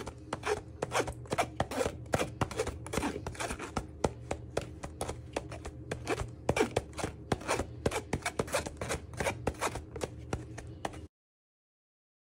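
A metal spoon working icing sugar through a wire-mesh sieve, with a quick, uneven run of scraping and tapping strokes. The sound cuts off abruptly about eleven seconds in.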